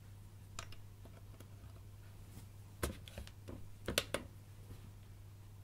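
A few small plastic clicks from handling test gear: a transistor fitted into an LCR-T7 component tester and its push button pressed, the loudest cluster of clicks about four seconds in. A steady low hum runs underneath.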